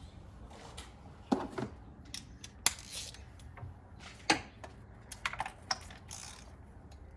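Hand tools clicking and clinking on metal while a loose spark plug is unscrewed and lifted out of a V8 engine: a few sharp single clicks a second or so apart, then a quick run of clicks near the end.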